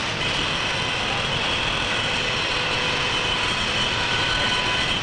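Stereotype plate-casting machinery running with a steady mechanical din. A high, even whine comes in just after the start and sits over the noise.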